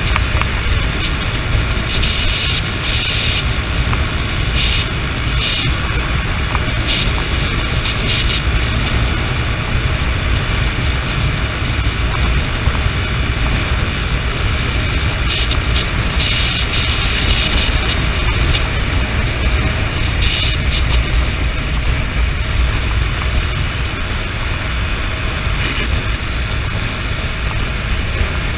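Steady wind rush on the microphone mixed with the running engine and road noise of a Honda CB motorcycle riding at cruising speed.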